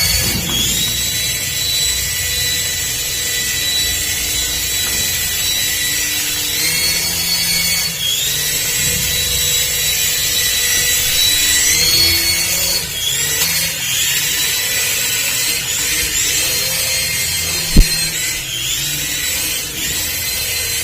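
Small electric motor of a toy RC car whining at a high pitch, the pitch sliding up and down again and again as it speeds up and slows. There is one sharp knock near the end.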